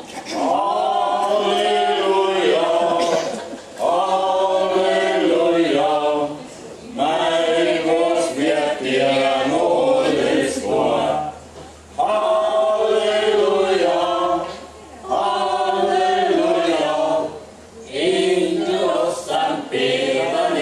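A mixed group of men and women singing together, in phrases a few seconds long with short pauses between.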